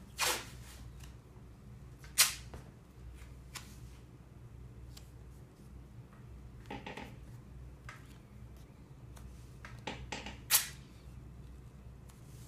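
Rigid strapping tape being pulled off the roll and torn by hand: about six short, sharp rips, the loudest about two seconds in and about ten and a half seconds in, over a steady low hum.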